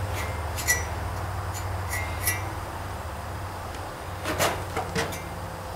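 Light metallic clinks and taps, several in the first couple of seconds, then a few scrapes about four seconds in. They are from metal exhaust parts and a small screwdriver being handled while silicone sealant is spread on a muffler slip joint. A steady low hum runs underneath.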